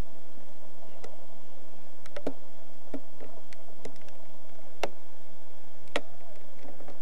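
Scattered sharp clicks and ticks, about seven at irregular intervals, over a quiet background.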